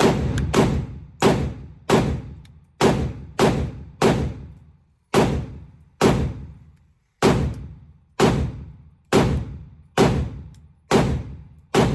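A firearm fired in a steady string of about seventeen shots, one every half second to second, each loud shot trailing off in a ringing echo.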